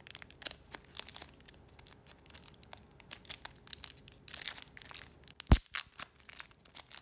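Crinkling and tearing of the taped plastic wrap around a stack of trading cards as fingers pick it open, a run of small crackles and ticks that grows busier in the second half, with one dull thump late on.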